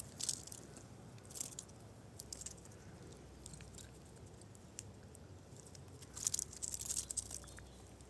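A squirrel eating an apricot: short bursts of crisp crunching and gnawing, with the longest and loudest run a little after six seconds in.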